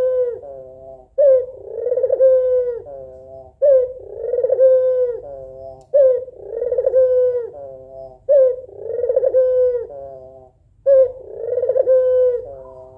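White Barbary dove (puter putih) hen cooing over and over, about five calls some two and a half seconds apart. Each call is a sharp opening note followed by a long rolling coo that drops at the end. It is a female's call to summon a male.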